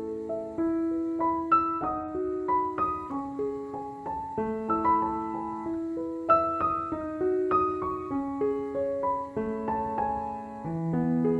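Background piano music: a gentle melody of single struck notes that ring and fade, with lower notes entering near the end.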